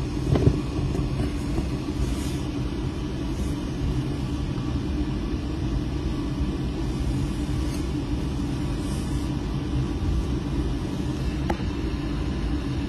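Steady low rumble of the OceanGate Titan submersible's onboard machinery, heard inside its cabin, with a light knock about half a second in.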